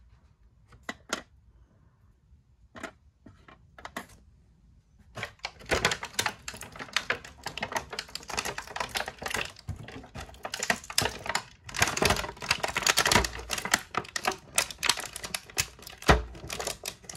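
Plastic packaging handled off-camera, crinkling and clicking while the accessory hands are worked free. A few scattered clicks at first, then from about five seconds in a dense, irregular run of clicks and crackles that keeps on.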